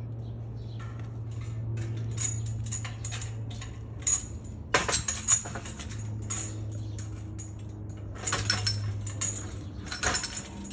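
Irregular light metallic clinks and rattles over a steady low hum, in clusters about five seconds in, about eight and a half seconds in and near the end.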